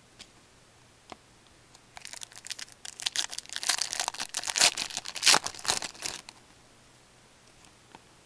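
Foil wrapper of a 2007-08 Fleer Ultra hockey card pack being torn open and crinkled. A run of crackling starts about two seconds in and stops about six seconds in.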